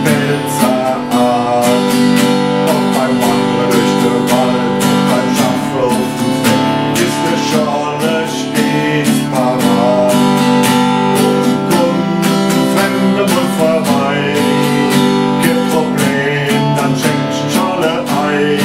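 Acoustic-electric guitar strummed in a steady rhythm through an instrumental break between verses of a song, with a melody line moving over the chords.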